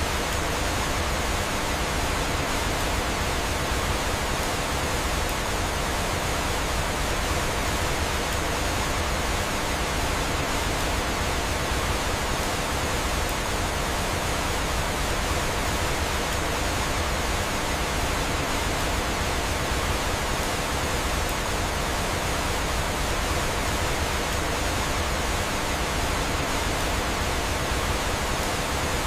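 Steady rushing of falling water from a waterfall: an even, unbroken hiss with no distinct crackles or changes.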